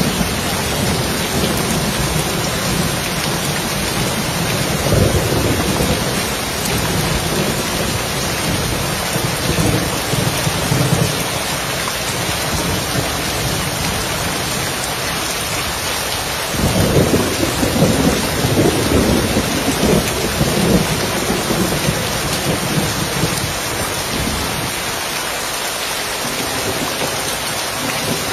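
Steady rain on a roof with rumbles of thunder underneath, the longest rolling for several seconds a little past the middle.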